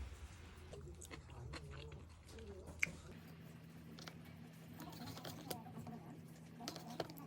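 A person chewing and biting food, with scattered short clicks and crunches. A faint steady hum comes in about three seconds in.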